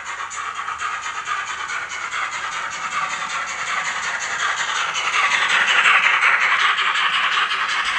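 Model freight train (a model BR 50 steam locomotive with coal wagons) running along the layout track: a steady rolling rattle with a fast even beat of about five ticks a second. It grows louder about five to seven seconds in as the wagons pass closest.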